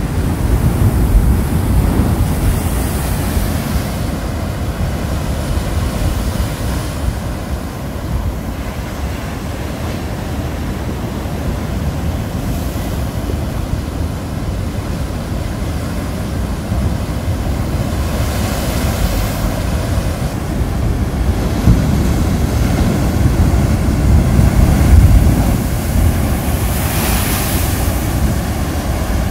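Ocean surf breaking on a rocky shoreline, a continuous rushing wash that swells and eases as each wave comes in, with the biggest crashes about two seconds in, about two-thirds through and just before the end. Wind buffets the microphone throughout, adding a low rumble.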